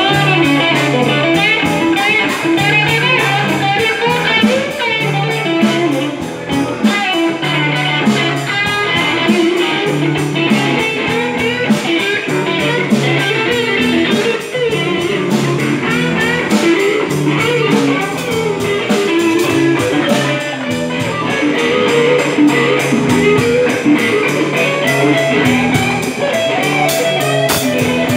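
Live band playing: electric guitar through a small amplifier over a drum kit keeping a steady beat on cymbals and drums.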